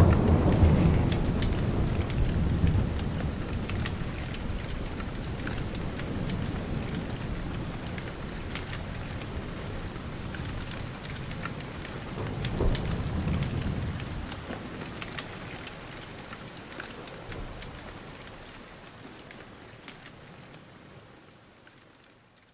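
Steady rain with rolls of thunder, one at the start and another about twelve seconds in, the whole storm fading out gradually.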